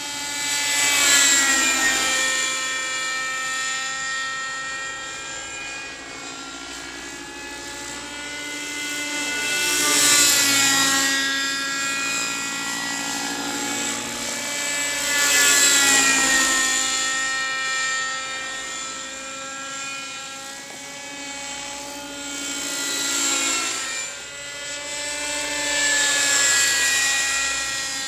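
Thunder Tiger Raptor 30 V2 radio-controlled helicopter flying, its OS 32SX-H two-stroke glow engine with a Zimmermann silencer running with a high whine. The sound swells loud and bends in pitch four times as the helicopter makes close passes, fading between them.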